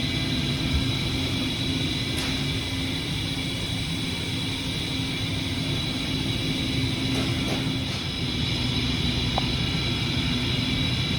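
Hurco CNC milling machine running with a steady mechanical drone and a constant high whine, and a few faint ticks.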